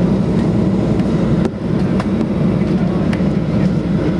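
Cabin noise inside a Boeing 737-800 on the ground, its CFM56-7 engines at low power giving a steady low rumble, with a few light knocks and a brief dip in loudness about a second and a half in.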